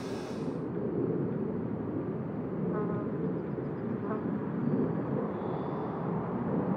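A steady low rumbling background noise with two faint clicks, about three and four seconds in.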